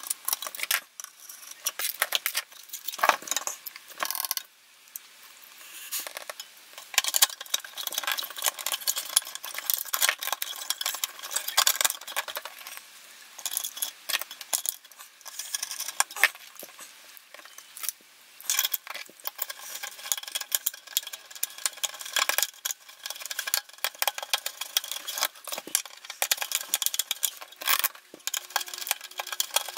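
Screwdriver turning small screws into the metal chassis of an RV 671 aircraft navigation receiver during reassembly: an irregular run of small metallic clicks, scrapes and clinks, with no long pauses.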